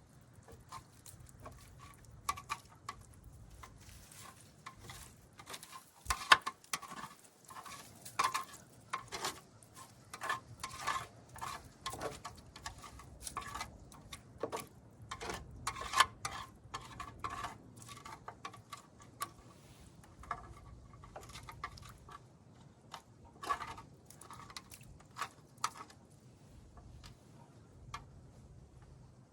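Hand tools clinking and knocking against metal engine parts in irregular bursts, as wrenches and sockets work on fittings and lines in the engine bay.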